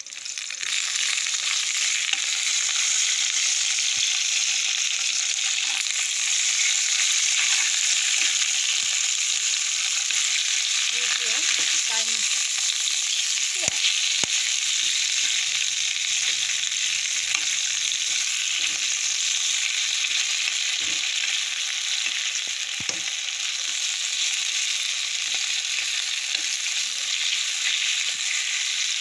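Bok choy sizzling steadily in a hot nonstick pan, with a few light clicks of metal tongs as the leaves are turned.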